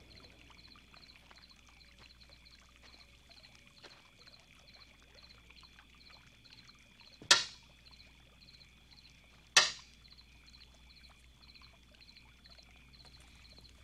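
Crickets chirping steadily in a faint night ambience, about three chirps a second. Two sharp taps cut in, about two seconds apart, midway through.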